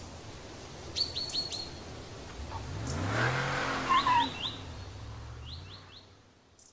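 Small birds chirping in quick runs of three or four calls while a car drives past, its engine note rising and then falling as it goes by. The sound fades out near the end.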